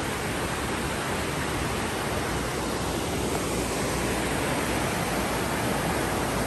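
Mountain stream rushing over rocks in a gorge: a steady, even rush of whitewater.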